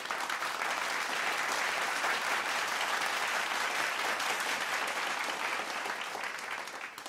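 Audience applauding, a steady clatter of many hands clapping that tails off near the end.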